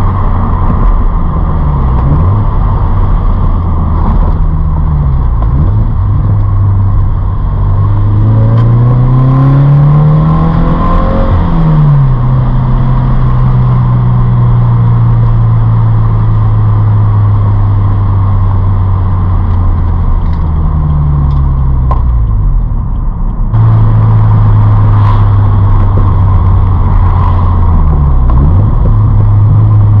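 Flat-four engine of a BRZ/FR-S/86 sports coupe heard from inside the cabin while driving. The revs climb for a few seconds, drop at a gear change, and then hold steady at cruise, with shorter dips and recoveries in between.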